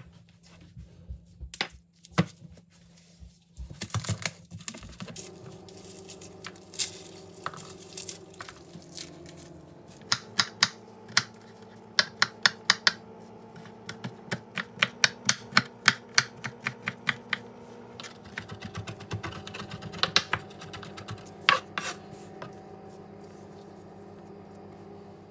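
Chef's knife chopping garlic cloves on a bamboo cutting board: quick runs of sharp taps, several a second, broken by short pauses.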